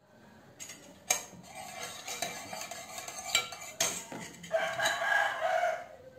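Plastic spatula scraping thick cake batter and knocking against a mixing bowl a few times as the batter is scooped out. A rooster crows twice in the background, each crow a long call of a second or more.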